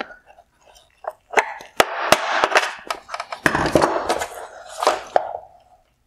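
Hard plastic parts of an LED headlight housing clicking and scraping as a retaining clip behind the reflector is worked free, with several sharp clicks amid two stretches of rattling scrapes.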